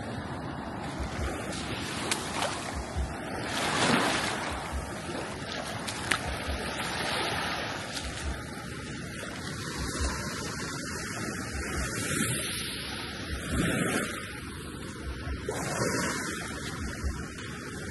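Wind buffeting the microphone over small waves washing on a sandy shore, the noise swelling louder several times; faint low thuds about once a second.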